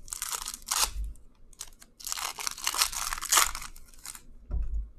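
Foil wrapper of a Bowman Chrome baseball card pack being torn open and crinkled, in two crackling stretches, the second longer.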